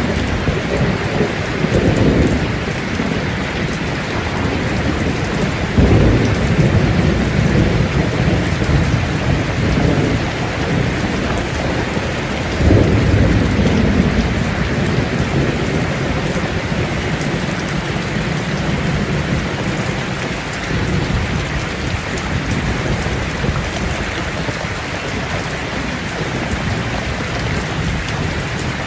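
Thunderstorm: steady heavy rain falling, with rolls of thunder rumbling in about 2, 6 and 13 seconds in.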